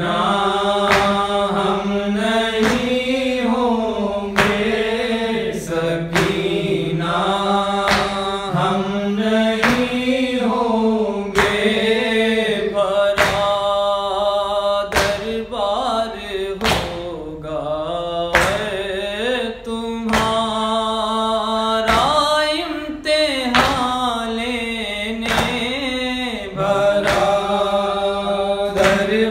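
A male voice reciting a noha, a Shia Urdu lament, in long melodic chanted phrases over a steady low drone and a regular percussive beat.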